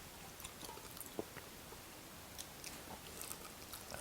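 Close-up chewing and biting of fried chicken legs, with soft scattered crunchy clicks and one sharper crack about a second in.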